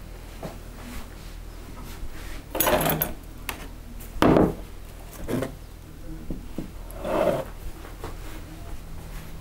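Barber's tools and dishes being handled and set down on a wooden counter: a few separate knocks and clinks spread over several seconds, the loudest about four seconds in.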